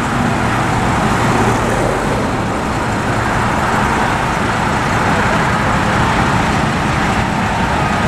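Mercedes-Benz fire engine driving along the road: steady engine and road noise, with no siren sounding.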